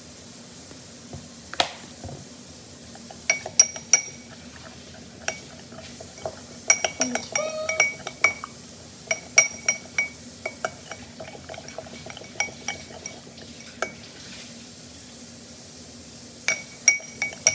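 A metal spoon clinking against a small glass bowl while stirring a thick mixture of soap, water and baking soda, in irregular sharp clinks that come in clusters. A steady low hum runs underneath.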